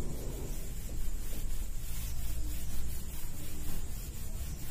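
Handheld whiteboard eraser rubbing across a whiteboard, scrubbing off marker writing.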